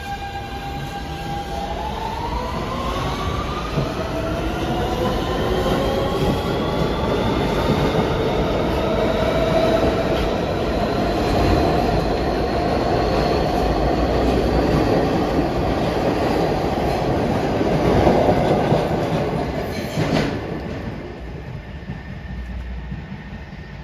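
R160B Siemens subway train accelerating out of the station: its propulsion whine rises in several climbing tones over the first ten seconds or so. Then come the loud rumble and clatter of the cars rolling past on the rails, which fade after about twenty seconds as the train leaves.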